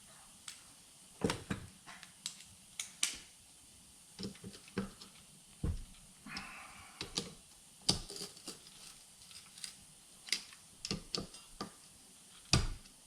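Irregular metal clicks, clinks and knocks from a GM alternator's parts and hand tools being handled during reassembly, with a brief squeak about six seconds in and a heavier knock near the end.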